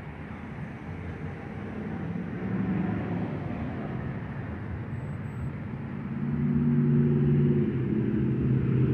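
Car engine and road traffic: a low, steady engine hum that grows louder about six seconds in.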